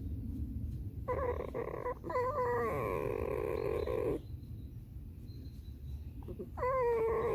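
Pet red fox squealing: a long wavering whine starting about a second in and lasting about three seconds, then a shorter squeal near the end.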